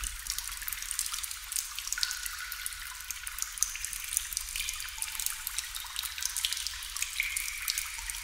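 Water dripping: many irregular drops falling in quick succession, some giving short ringing plinks.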